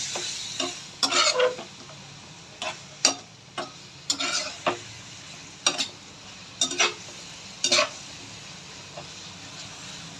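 Spatula scraping and stirring chicken in a hot pan, about ten strokes with sizzling between them. The chicken chilli is being stir-fried dry in its soy, vinegar and chilli sauces. The stirring stops near the end, leaving a steady sizzle.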